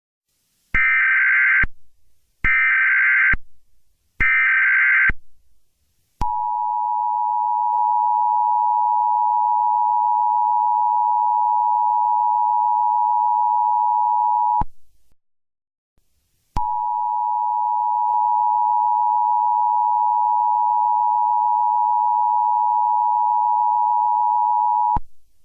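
Emergency Alert System tones: three short bursts of the SAME digital header, screeching data, about a second each, within the first five seconds. These are followed by the EAS two-tone attention signal (853 and 960 Hz sounded together), a steady tone that runs about eight seconds, breaks off for about two seconds, then sounds again for about eight more.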